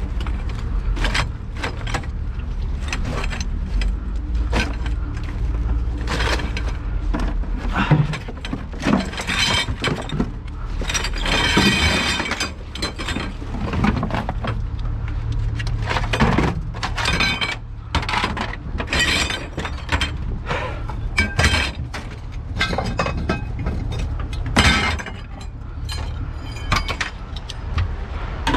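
Scrap metal being thrown onto a pile: repeated clanks and crashes, some of them ringing, over a steady low rumble.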